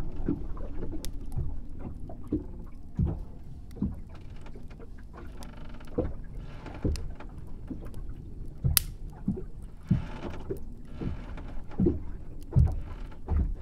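Water lapping and knocking against the hull of a small wooden boat: irregular low knocks, a few sharp clicks, and two longer swishes partway through.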